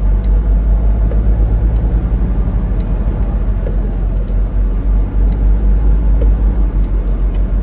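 Semi truck driving down the highway: a steady, heavy low rumble of diesel engine and road noise, with a few faint light ticks now and then.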